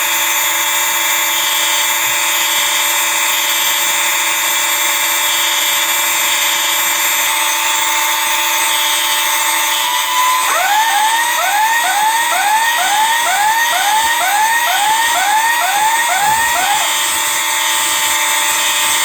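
Several fire alarm devices (horns and smoke alarms) sounding together in a continuous loud buzzing blare. From about ten seconds in to about seventeen seconds, a short rising electronic sweep repeats about twice a second over the top.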